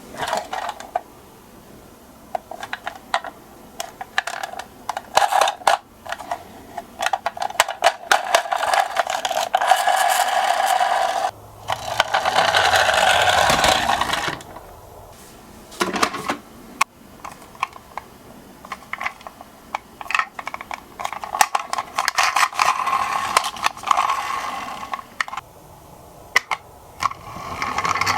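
Miniature toy cars clicking, rattling and knocking as they are handled, with several runs of a few seconds each of small wheels rolling along a slope.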